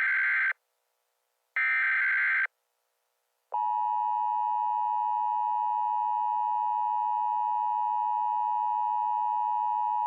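Emergency Alert System tones: the end of one burst and then a further one-second burst of the screeching digital header, and about a second later the long, steady attention-signal tone starts and holds.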